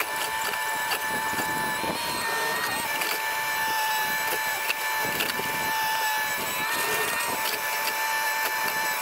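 Cat 304 mini excavator running while digging, with a steady high-pitched hydraulic whine over the engine and a few short knocks.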